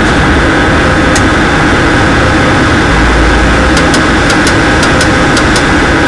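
Electric motor running steadily at speed: a steady whine over a loud hum. It comes just after the motor has spun up. About nine sharp clicks sound over it, one about a second in and a quick run near the end.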